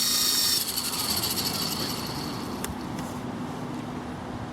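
Electric motors of a Double Horse 9101 RC helicopter whirring during a bench test. The high whine cuts off about half a second in, and a fainter whir slowly dies away, with a single click near the middle.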